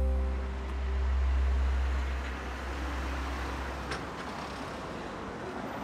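Street traffic: cars driving past, a low rumble and tyre noise swelling and fading as a car goes by, then a lighter steady hum as a small van passes.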